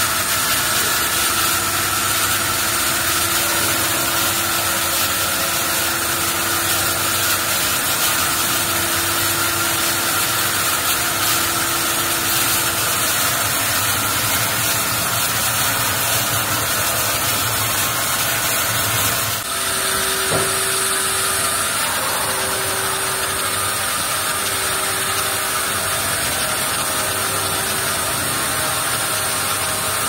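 Two-head horizontal band resaw on a sawmill line running and cutting a log slab into boards: a loud, steady machine din with a high whine. About two-thirds through the sound changes abruptly, and a tone starts pulsing on and off about every two seconds.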